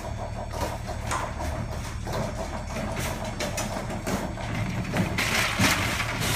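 Metal shopping cart clattering and rattling as it is pushed into the cabinet of a mobile cart-washing unit, over the steady low hum of the unit's machinery. A loud burst of hiss comes in about five seconds in.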